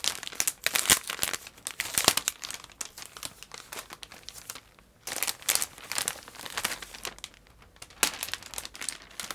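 Clear plastic packaging bag crinkling as it is handled and pulled open, in several bouts with a quieter spell around the middle.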